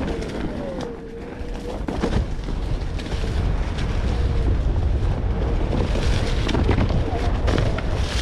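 Onewheel GT electric board riding over a rough dirt trail. Its hub motor gives a thin whine that dips and rises in pitch with speed, over wind rumble on the microphone and scattered knocks as the tire hits bumps.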